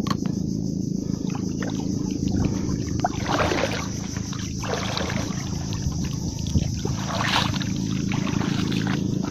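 A steady low motor hum, with water sloshing briefly twice, about three and a half and seven seconds in.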